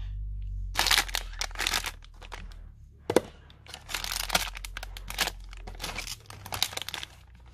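Clear plastic retail packets crinkling and rustling as they are handled and shifted about, in a run of short rustles with one sharp crackle about three seconds in. A low rumble runs beneath for the first six seconds.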